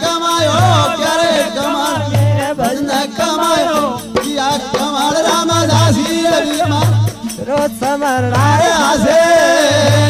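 Marwari desi bhajan music: a gliding melody over a steady veena drone, with a low drum beat every second or two.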